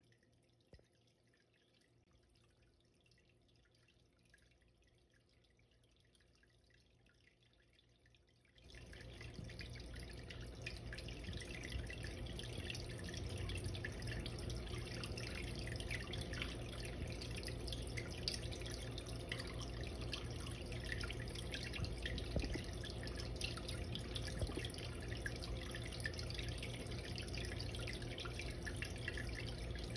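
Water dripping and trickling in an indoor turtle pond, with many small rapid drips over a low hum. It starts suddenly about eight and a half seconds in and then runs steadily.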